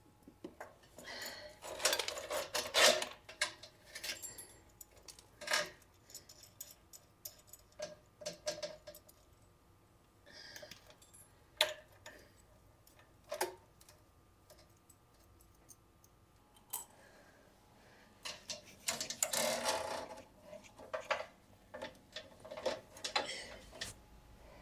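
Flexible metal conduit of a solenoid cable rattling and clinking as it is handled and worked into place against a dental air compressor, in irregular bursts with quiet gaps.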